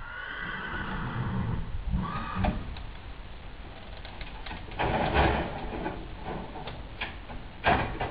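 Metal panels and latches on a mobile horse-dentistry trailer being opened by hand: creaks, rattles and knocks, the loudest about five seconds in and again near the end.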